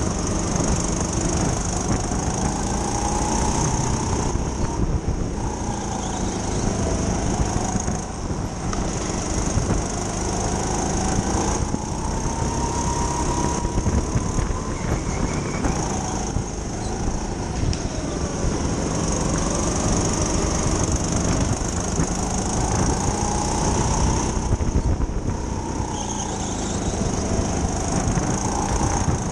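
Racing kart's motor running under race load, its pitch rising and falling again and again as the kart speeds up and slows, over constant tyre and track noise.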